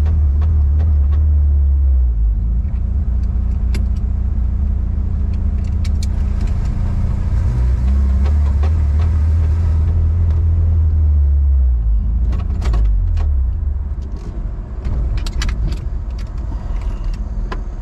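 Turbocharged 22R-E four-cylinder engine of a 1993 Toyota Pickup running steadily, heard from inside the cab. Near the end it gets a little quieter, with light clicks and rattles.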